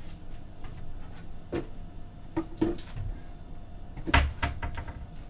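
A few scattered knocks and clunks of kitchen items being handled, the loudest cluster about four seconds in, over a steady low hum.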